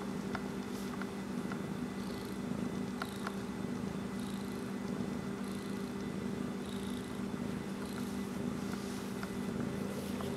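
Domestic cat purring steadily and without a break while being petted under the chin and on the head.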